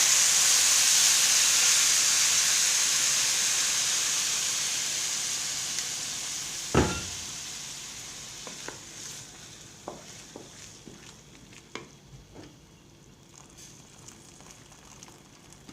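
Hot water poured into a pot of rice and vermicelli frying in oil, hissing loudly the moment it hits and then sizzling down steadily over about ten seconds. A single knock comes about seven seconds in, and a few light clinks follow.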